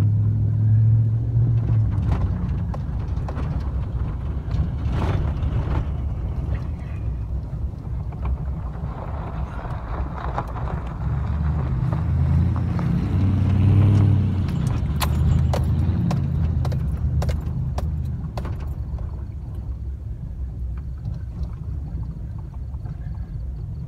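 Toyota Tundra pickup driving on dirt: a low engine and tyre rumble that swells about a second in and again around fourteen seconds in, with scattered light clicks.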